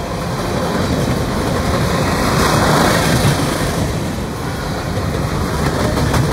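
Freight train of open-top coal hopper cars rolling past close by: a steady noise of steel wheels on the rails, swelling louder and hissier about two to three seconds in.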